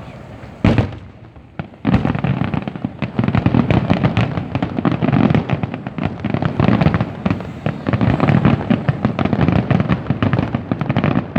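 Fireworks going off: a single loud bang under a second in, then from about two seconds in a dense, continuous barrage of bangs and crackling.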